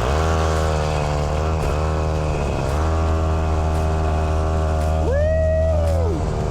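Semi truck's diesel engine running under way, heard from inside the cab as a steady low drone, its pitch dipping briefly twice early on. A short tone that rises, holds and falls sounds over it about five seconds in.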